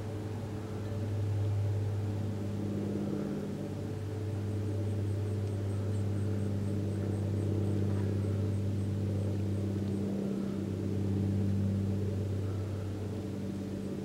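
A steady low droning hum of two held tones, the higher one joining about two seconds in and the lower one dipping briefly about ten seconds in, with faint high ticks repeating a few times a second in the middle.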